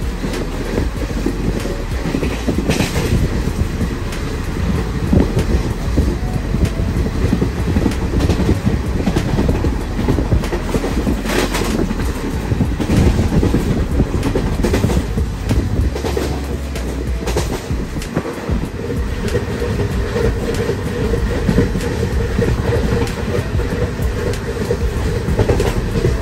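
Porbandar–Muzaffarpur Express running at speed, heard from inside the coach: a steady rumble of wheels on the rails with clickety-clack over the joints, and a few sharper clatters along the way.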